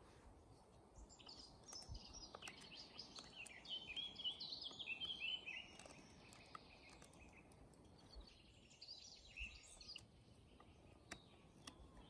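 Faint songbird singing in quick runs of chirping notes, pausing in the middle and starting again near the end, with a few faint clicks.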